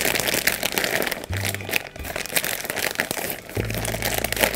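Clear plastic bag crinkling in quick irregular bursts as hands squeeze Kinetic Sand out of it, over background music.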